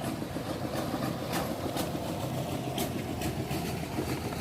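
Heavy machine engine running steadily, with a few light knocks through the low drone.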